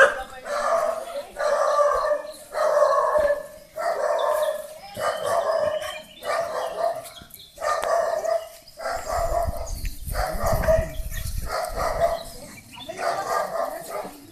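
A dog barking over and over at a steady pace, a little faster than one bark a second. A low rumble runs under the barking between about 9 and 11.5 seconds in.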